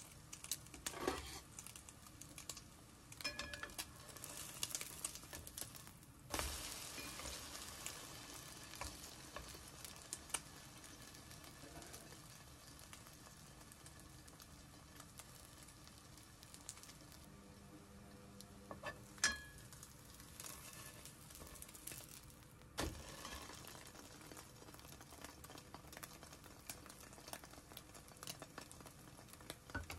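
Butter sizzling under a slice of French toast frying in a nonstick frying pan, a faint steady hiss with scattered small pops. A few sharper clicks stand out, the loudest past the middle.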